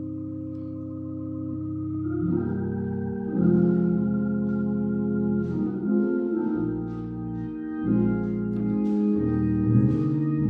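Organ playing held chords that change every second or two: the instrumental introduction to a sung solo, before the singer comes in.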